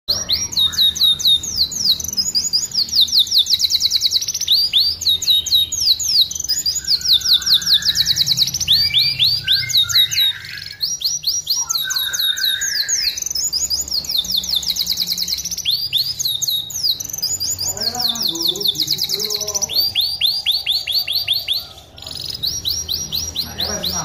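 Yellow domestic canary singing a long, loud song of rapid high trills: runs of quick, evenly repeated notes, each run lasting a second or two before the bird switches to a different trill, with a short break about ten seconds in and another near the end.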